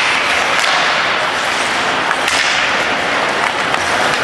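Ice hockey play on the rink: a steady hiss of skates on ice and arena noise, with a few sharp cracks of sticks striking the puck.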